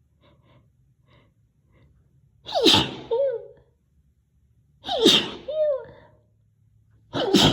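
A young woman sneezing loudly three times, about two and a half seconds apart, the third just starting near the end. A few faint catching breaths come before the first sneeze.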